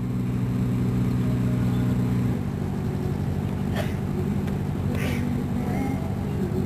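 Motor cruiser's engine running with a steady low drone, which shifts to a slightly quieter, different hum about two seconds in. There are two brief clicks near the middle.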